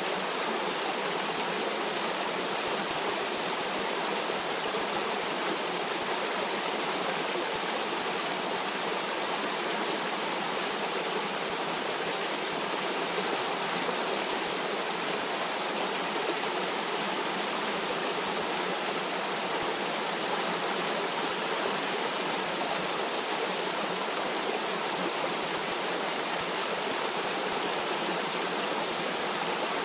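Stream water running and splashing steadily, an even rushing noise with no change in level.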